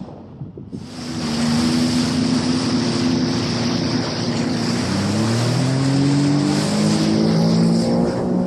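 Sea-Doo GTX 155 jet ski's engine running under way beneath a loud rush of wind and spray. It rises in pitch from about halfway through as the ski speeds up.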